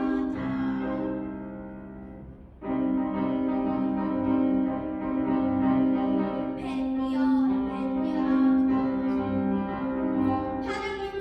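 Classical music: a slow melody of long held notes over piano accompaniment, fading briefly and starting again about two and a half seconds in.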